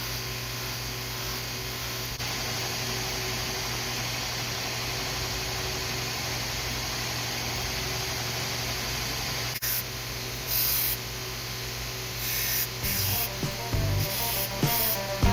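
Grizzly 2x42 knifemaker's belt grinder running steadily, with a low motor hum and the hiss of the belt grinding a small knife blade. About ten seconds in the grinding turns into short louder spells, and background music comes in near the end.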